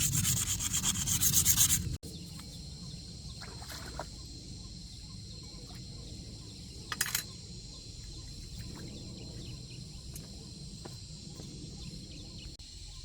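Fast, even rubbing strokes of hand sanding or scrubbing on a part for about two seconds, then a sudden cut to a quieter background with a steady high whine and one short scrape near the middle.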